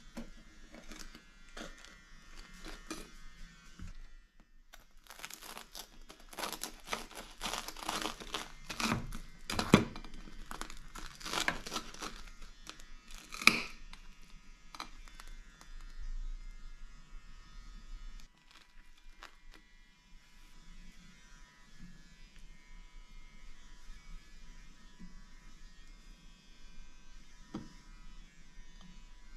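A knife sawing through a crisp toasted hot sandwich: a run of crunching, crackling strokes, with a couple of sharp clicks near the end of the cut. Quieter handling noises follow.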